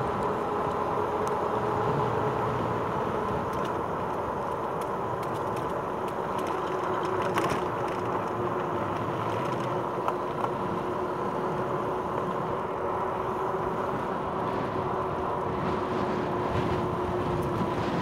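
Rad Power Bikes RadRover 5 e-bike riding along steadily: the geared rear hub motor's even whine over the rush of tyres and wind, with a couple of sharp knocks partway through.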